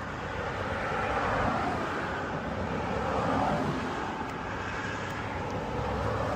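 Distant engine noise, a steady rumble that swells and fades twice.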